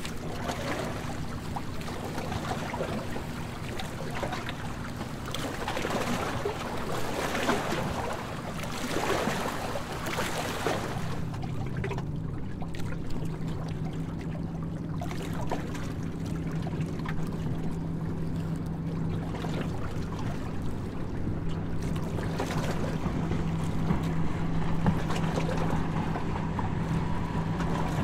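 Harbour tour boat's engine running with a steady low hum under rushing wind and water noise. The rushing eases about eleven seconds in, leaving the engine hum plainer.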